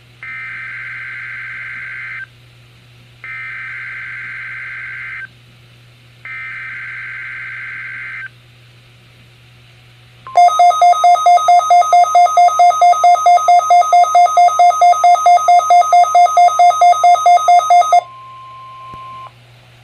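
Emergency Alert System test signal on NOAA Weather Radio: three two-second warbling bursts of SAME digital header data, then the steady 1050-hertz warning alarm tone. About ten seconds in, the weather radios' own alert goes off over it as a loud rapid beeping, about five beeps a second for about eight seconds, the sign that the radios have decoded the alert; the steady tone carries on alone for a second after the beeping stops.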